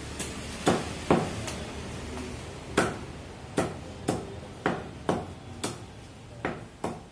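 Meat cleaver chopping chicken into pieces on a chopping block: about a dozen sharp chops at an uneven pace, with a short pause after the first four.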